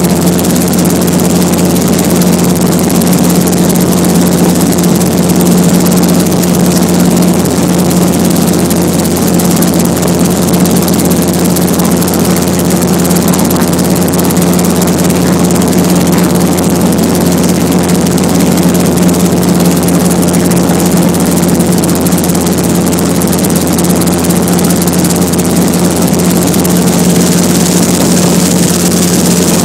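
Helicopter running steadily in flight: a loud, unbroken engine and rotor drone at a constant pitch.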